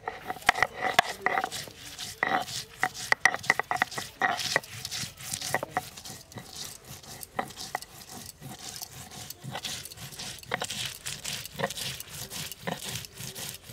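Stone roller rocked over a flat grinding stone (sil-batta) crushing sliced onions into a paste: repeated knocks and scraping of stone on stone, thickest in the first few seconds, then a steady run of scrapes and taps.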